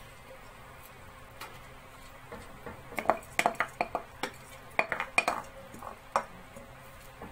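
Wooden spoon knocking and scraping against a pot lid and the rim of a pot while soaked basmati rice is tipped into the pot. There are several sharp knocks and clinks, some ringing briefly, from about three seconds in to about six seconds in.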